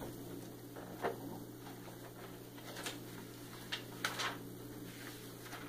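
Hymnal pages being leafed through: a few short paper rustles, the loudest cluster about four seconds in, over a faint steady low hum.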